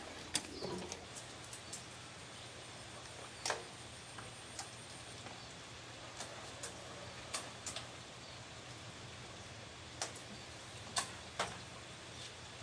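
Irregular sharp clicks and knocks from a backpack pump sprayer being worked and carried, over a faint steady background hiss.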